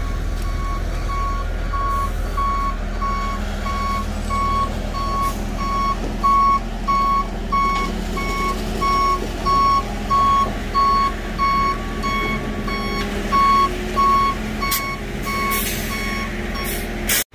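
Ready-mix concrete truck's reversing alarm, evenly spaced beeps a little under two a second, over the steady rumble of diesel engines, as the truck backs up to the concrete pump's hopper. A few sharp knocks sound just before the beeping stops near the end.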